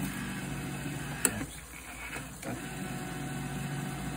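Electric can opener running, its motor turning a can as the blade cuts around the lid: a steady hum with a sharp click about a second in.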